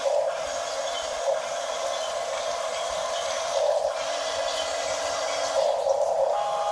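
Small electric motor and plastic gearbox of a radio-controlled construction model whirring steadily.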